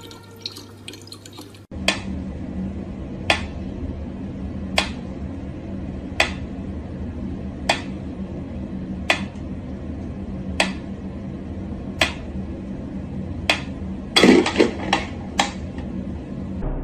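A faucet's thin stream of water running briefly, then a pyramid-style wind-up metronome ticking slowly and evenly, about one tick every second and a half. Near the end, a short cluster of louder knocks.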